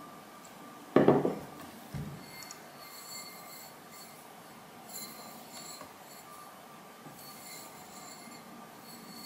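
Stoneware cups handled on a table: a sharp ceramic knock about a second in as a cup is set down, a softer knock a second later, then quiet handling of the tumbler.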